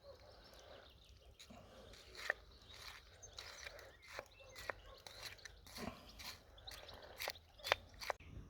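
Irregular crunching and chewing of food, with a run of sharp crunches, the loudest about two seconds in and near the end.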